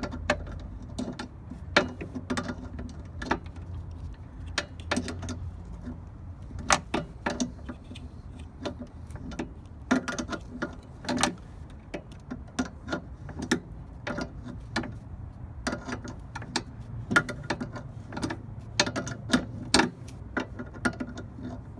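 Steel wrench clicking on a leveling foot's lock nut as it is tightened in short strokes: irregular sharp metallic clicks, some in quick little runs.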